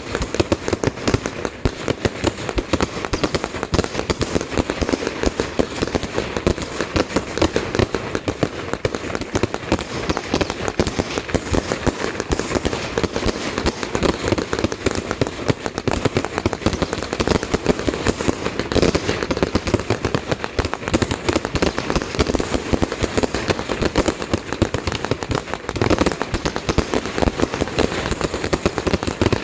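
Firecrackers going off in a dense, unbroken rapid crackle of many pops a second, with a couple of louder bangs standing out in the second half.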